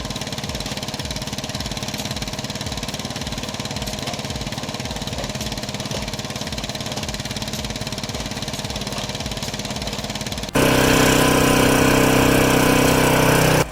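An engine running steadily with a fast, even low throb. About ten seconds in it cuts abruptly to a louder, harsher machine drone with a steady pitch, which stops just as abruptly near the end.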